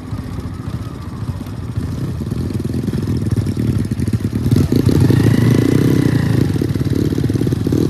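Honda Wave 110i's single-cylinder four-stroke engine, big-bored with a 56 mm piston, running on the move and getting louder about halfway through as it accelerates.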